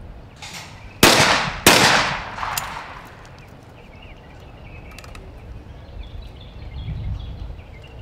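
Two shotgun shots about two-thirds of a second apart, a skeet double fired from an over-and-under shotgun, each trailing off in echo.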